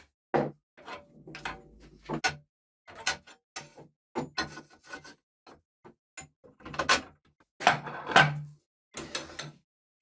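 Irregular metallic knocks and clanks, some ringing briefly, as the steel parts of a homemade manual bar bender are handled and worked.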